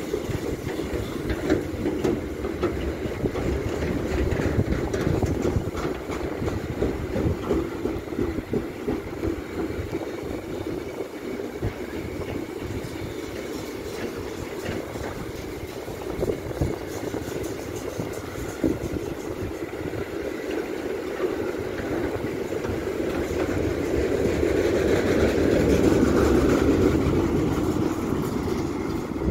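Double-deck car-carrier freight wagons rolling past on the track: a steady rumble of wheels on rail, with the clatter of wheels over rail joints, growing louder in the last few seconds.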